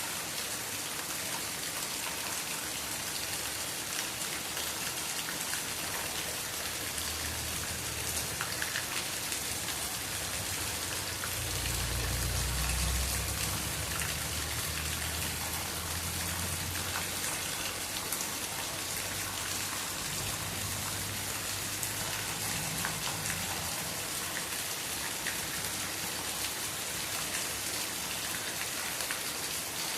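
Steady rain falling on a yard and tree, a dense hiss sprinkled with the ticks of single drops. A low rumble swells underneath twice, strongest about twelve seconds in.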